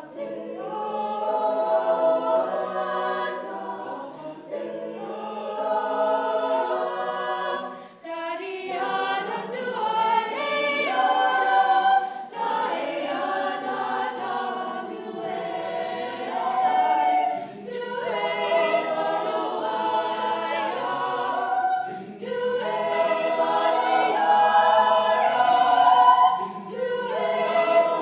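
Mixed high school choir singing a cappella, in phrases broken by short pauses every four or five seconds.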